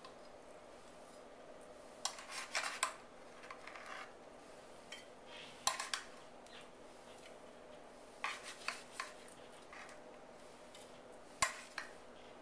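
A utensil scraping and clinking against the baking pan and plate as cut lemon bar squares are lifted out, in scattered short clicks and scrapes with pauses between.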